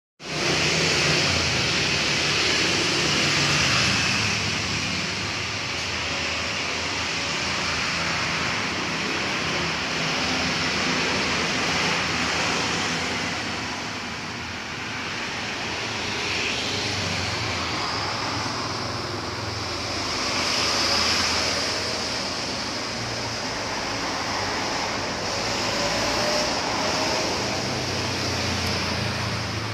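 Aquarium filter running: a steady watery hiss.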